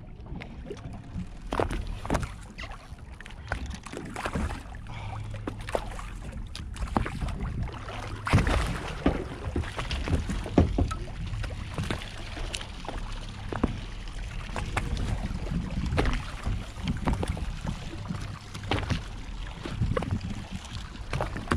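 Boat engine idling low and steady while water slaps and splashes against the hull, with scattered knocks on the boat and wind buffeting the microphone.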